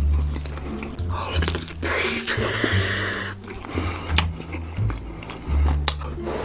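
Close-miked eating sounds: a man chewing and smacking on pieces of roast chicken soaked in creamy sauce, with sharp wet clicks throughout and a longer rasping noise from about two to three and a half seconds in. Background music with a steady bass line runs underneath.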